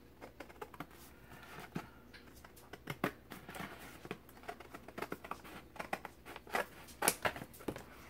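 Scissors cutting through a collage sheet of glued book pages in a run of short, irregular snips, with some paper rustling as the sheet is handled.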